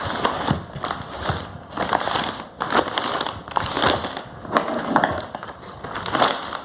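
Packaging being handled and opened: irregular crackling, rustling and sharp crinkles of plastic and cardboard.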